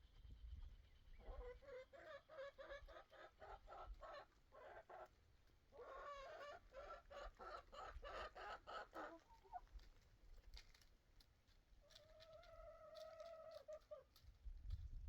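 Chickens clucking faintly in two runs of quick notes, about four or five a second, then a longer drawn-out call near the end.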